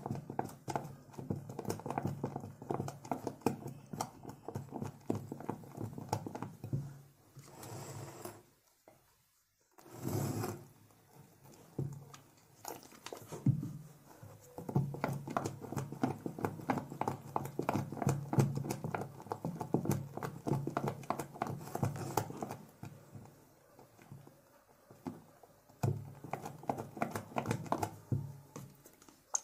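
Spatula stirring a thick glue-and-toothpaste slime mixture in a glass bowl: quick, irregular wet squishing and clicking, with a brief pause about nine seconds in.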